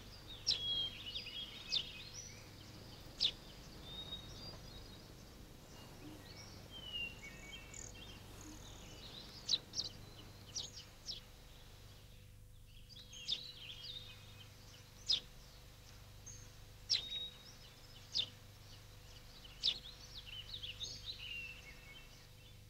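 Faint birds chirping here and there, short scattered calls over a low steady background hum.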